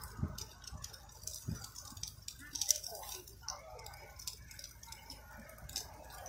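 Faint voices talking, with many scattered light ticks and crackles at a charcoal grill.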